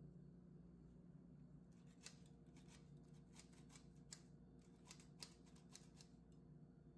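Faint, irregular clicking and rasping of a hand-held metal flour sifter being worked to dust flour over dough, in a run of a few clicks a second from about two seconds in until shortly before the end.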